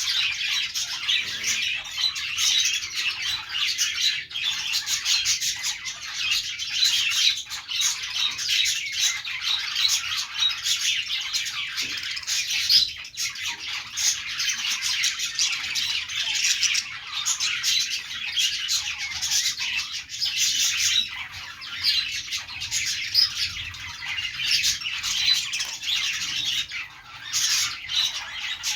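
Budgerigars chattering continuously: a dense, unbroken run of high chirps.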